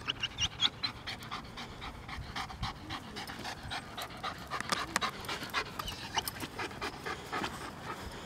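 Dog panting rapidly and rhythmically while heeling, with a few short high squeaks near the start.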